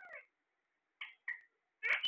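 Alexandrine parakeets giving short, meow-like calls: one at the start, two close together about a second in, and a louder one near the end.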